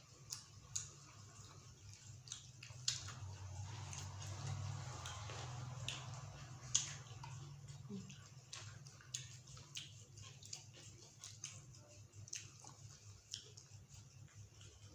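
Close-miked chewing: irregular wet mouth clicks and smacks of someone eating, over a steady low hum that grows louder in the middle.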